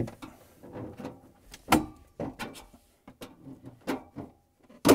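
Irregular clicks and knocks of a flathead screwdriver working a refrigerator freezer's plastic rear access panel free of its top rail and pushing it down. The loudest knocks come a little under two seconds in and at the very end.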